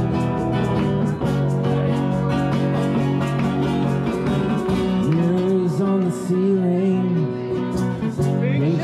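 Guitar music with a voice singing a melody over it from about five seconds in.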